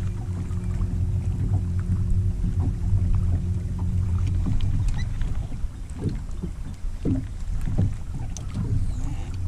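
Bow-mounted electric trolling motor on a bass boat humming steadily, cutting off about halfway through; after it stops, irregular low thumps.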